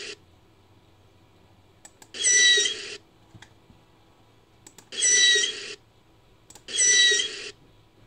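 Made-up dugong call sound effect, pieced together from manatee and Desmostylus recordings: a series of short, high-pitched calls, each under a second long. One call ends right at the start, then three more follow with quiet gaps, the last two close together. Faint clicks sit between the calls.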